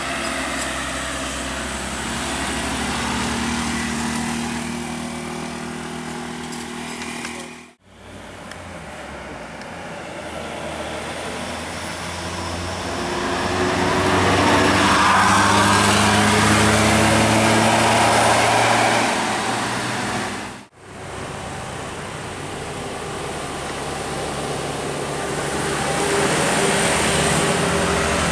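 Large buses driving past on a wet road: diesel engines running, with a loud rushing hiss of tyres on the wet surface that swells in the middle. The sound cuts off sharply twice.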